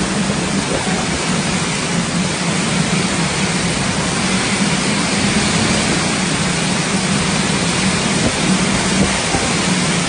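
Violent storm wind and driving rain, a loud, steady rush of noise with a low rumble under it.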